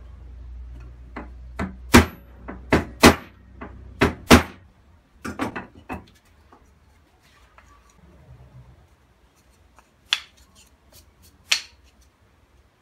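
Small cut wooden blocks being set down and knocked against each other and the workbench: a series of sharp wooden clacks, close together in the first half, then two more near the end.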